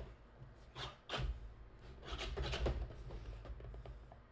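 A cardboard box being slit open with a screwdriver: several short scrapes and rubs against the cardboard, with low knocks from the box being handled on the desk.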